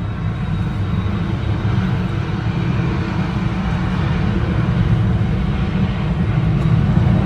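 Steady low rumble of a car driving slowly, heard from inside, with a broad hiss over it; it grows slowly louder.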